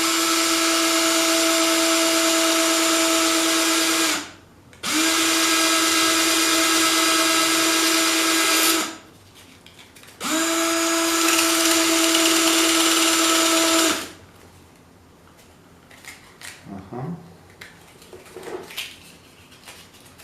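A small electric power-tool motor, used to clean the rubber tire of a tape deck's pinch roller, runs in three bursts of about four seconds. Each burst spins up quickly to a steady whine. A few light clicks and handling sounds follow near the end.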